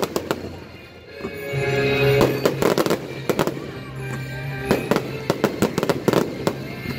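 Fireworks display: aerial shells bursting and crackling in quick succession, with a short lull about a second in, over background music.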